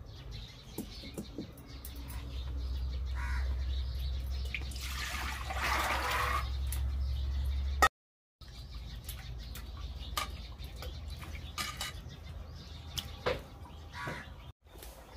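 Hand-washing in metal cookware: water sloshing and splashing, with scattered clinks and knocks of steel pots and utensils. Birds chirp in the background, and a steady low rumble runs under the first half.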